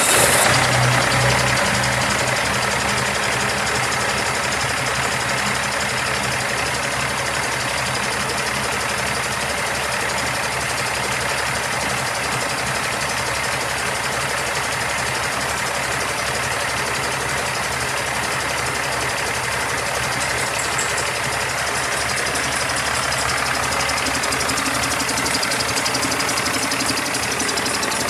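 2006 Cummins ISX inline-six diesel engine idling steadily just after starting, a little louder for the first couple of seconds before it settles.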